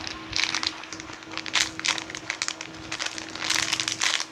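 Plastic packaging crinkling and rustling in several irregular bursts as it is handled, over a faint steady electrical hum.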